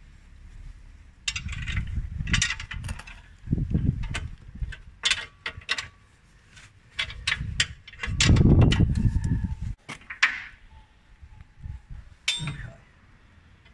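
Steel ring spanner clinking against a bolt and the steel stair frame as a stair stringer is bolted up, with scattered sharp clicks and rustling. A louder low rumble comes in about eight seconds in and lasts a couple of seconds.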